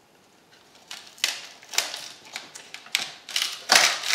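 An irregular series of sharp clicks and snaps from a 1981 Camaro tail-light's inner rubber gasket, glued in with silicone, being pried and pulled out of the plastic housing. It starts about a second in and is loudest near the end.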